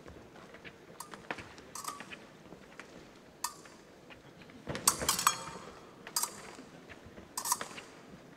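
Épée blades clinking against each other in irregular sharp beats, some ringing briefly, with a quick flurry of several about five seconds in.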